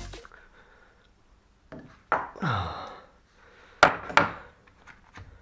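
Tools knocking and clanking against metal brake parts at a car's rear wheel hub: about five short, sharp strikes with quiet between them, the two loudest close together a little under four seconds in.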